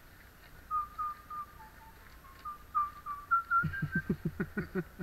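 A person whistling a short tune, a string of brief clear notes that climbs in pitch. It is followed by a quick run of short low sounds, about eight a second, which are louder than the whistle.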